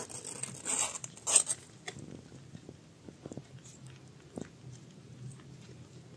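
Newborn kittens suckling at their mother cat: many small, wet smacking clicks, with a few louder rustles of fur and bedding in the first second or so.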